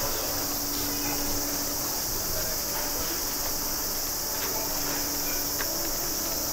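A steady high-pitched buzzing drone, with a low steady hum beneath it and faint voices of passers-by.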